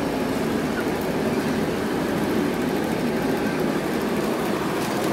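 Wire shopping cart being pushed, its wheels rolling over concrete and the metal basket rattling steadily.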